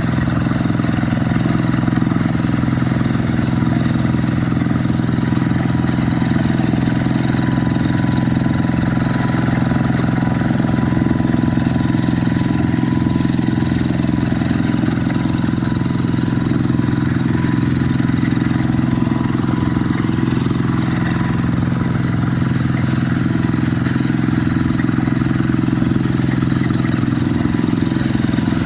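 Quick G1000 two-wheel hand tractor's engine running steadily under load, a constant even drone at an unchanging speed.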